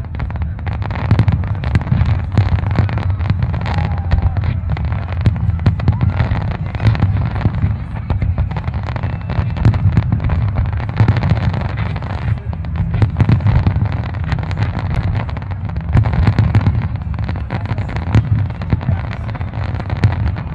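Fireworks display in a dense, continuous barrage: many sharp cracks of bursting shells, one after another, over a steady low booming.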